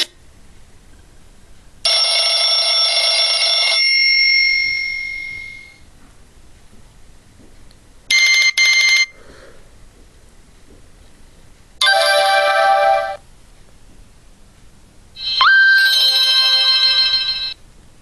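Nokia 6124 classic mobile phone playing a string of four short electronic ringtones, each a second or two long with pauses between. The first fades out slowly, the second is two quick blips, and the last opens with a quick upward sweep.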